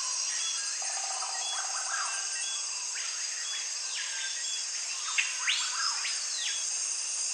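Nature ambience of insects and birds: a steady high insect drone with a short chirp repeating about once a second, and bird calls over it, including two longer calls that rise and fall about three and five and a half seconds in.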